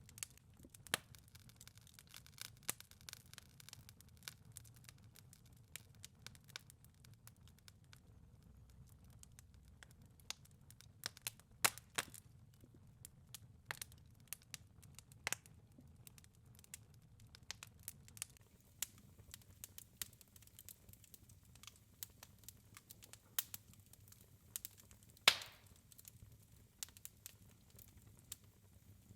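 Wood fire crackling in a fireplace: irregular pops and snaps over a faint low rumble, with one louder pop late on.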